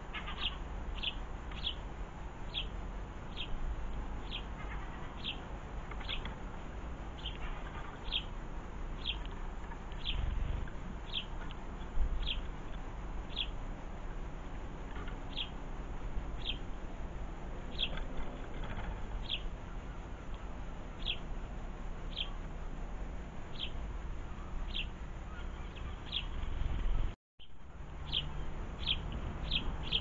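House sparrow chirping: one short, downward-slurred note repeated about once a second, with a steady low rumble underneath.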